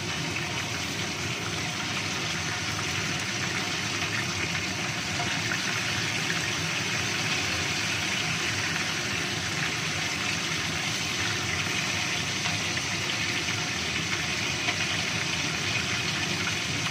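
A whole tilapia shallow-frying in hot oil in a wok: a steady sizzle with fine crackling that keeps on without a break.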